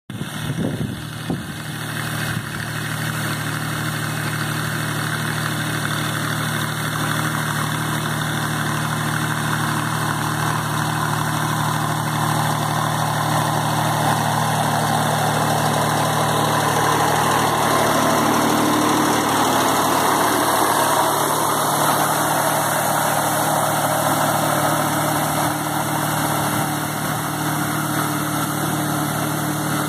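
A Mitsubishi Shakti VT 224 mini tractor's diesel engine running steadily at a low, even speed.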